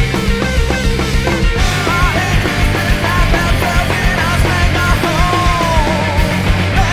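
Post-punk rock song played by a full band, with bass, drums and guitars at a steady driving beat. About two seconds in, a high melody line with sliding, bending notes comes in over it.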